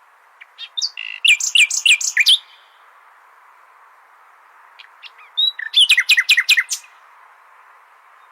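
Common nightingale singing: two phrases of quick, repeated whistled notes, each about a second and a half long and a few seconds apart, over a steady background hiss.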